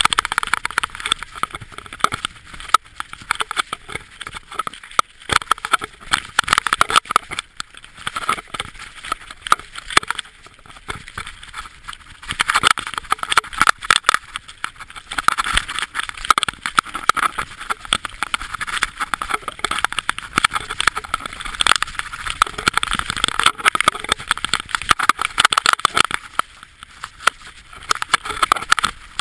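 Mountain bike running fast down a rough, stony dirt trail: a continuous irregular clatter and rattle of the bike jolting over rocks and bumps, with the hiss of tyres on gravel.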